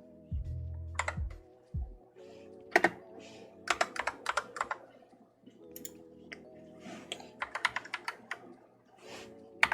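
Keys being pressed on an AKKO Tokyo World Tour 3087 mechanical keyboard with cream yellow switches, testing the keys after plugging it in. The presses come as scattered single clacks and quick runs of several clacks.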